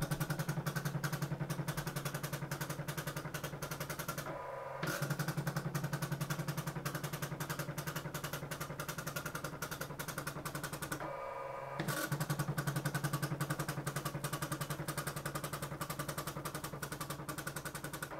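Teletype Model 43 dot-matrix teleprinter printing at 10 characters per second: a fast, even run of small print strikes. It breaks twice, for about half a second and then nearly a second, with a short whir in place of the strikes.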